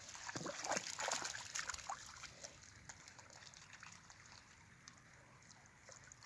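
Light splashing and sloshing of shallow creek water as a duck dabbles and a dog wades, busiest in the first two seconds, then settling to a faint trickle.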